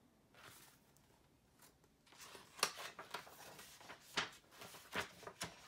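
Pages of a hardcover picture book being turned and handled: a run of sharp, crackly paper rustles and flaps, starting about two seconds in.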